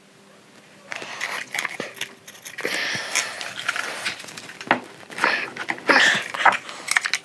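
Irregular clicks, scrapes and rustles of plastic and metal parts being worked by hand: a heater blower motor being taken apart, its fan wheel being pulled off the shaft. The handling starts about a second in.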